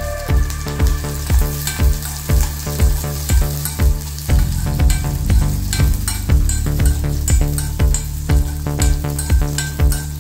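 Garlic and small onions sizzling in hot oil in a metal kadai, stirred with a spoon, mixed with background electronic music that keeps a steady beat.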